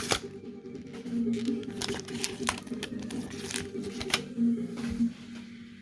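Foil wrapper of a Pokémon booster pack crinkling and tearing as it is opened, with scattered sharp crackles and rustles from handling, over a steady low hum.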